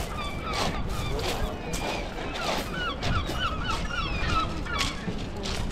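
A gull calling: a quick run of short, arched cries, several a second, thickest in the latter half. Steady background noise lies under the calls.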